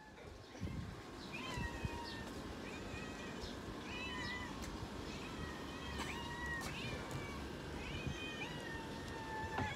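Two street cats meowing over and over for food, the calls starting about a second and a half in and coming about once a second, sometimes overlapping.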